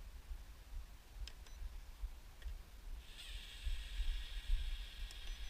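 Hubsan 107D+ micro quadcopter's motors spinning up about three seconds in and holding a steady high-pitched whine of several close tones. Before that, a few faint clicks over a low rumble of wind on the microphone.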